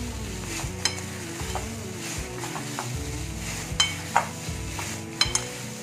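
A hand in a plastic food glove squeezing and kneading mashed potato in a bowl: plastic crinkling and soft squishing, with a few sharp crackles.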